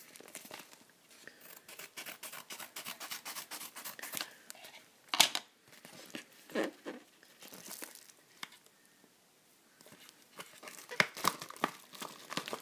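Yellow padded paper mailing envelope being torn open by hand: a run of quick rasping tears, then a sharp, loudest rip about five seconds in and another a little later, with crinkling of paper and packing. Several sharper snaps and rustles come near the end.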